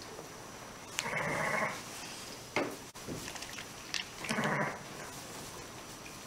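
A sheep bleating twice, once about a second in and again just after the midpoint, with a couple of short clicks between the calls.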